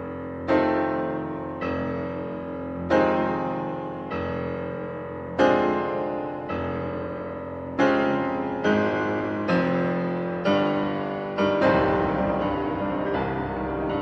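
Background piano music: slow chords, each struck and left to fade, about one a second, coming a little faster near the end.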